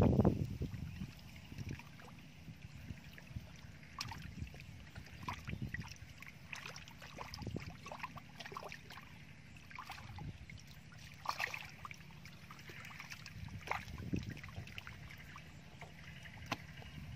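Shallow muddy water splashing and sloshing in short, irregular bursts as hands grab small fish flapping in a drying puddle. Loudest in the first second.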